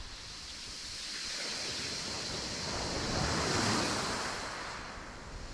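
Surf: a wave washing in, swelling steadily to a peak about three and a half seconds in and then falling away.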